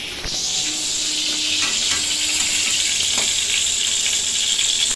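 Eggplant slices sizzling steadily as they fry in hot oil in a steel wok. A spatula scrapes and knocks in the pan a few times.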